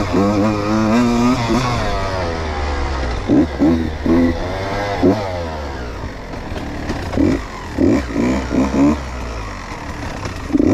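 Two-stroke 125 cc engine of a 2019 Beta 125 RR Racing enduro bike, revving up and down as it is ridden. There is a rising pull in the first couple of seconds, then a run of short, sharp throttle blips in the middle and again toward the end.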